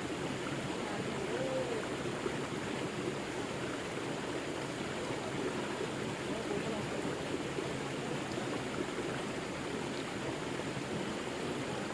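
River water flowing steadily: a continuous rush and burble of a forest stream.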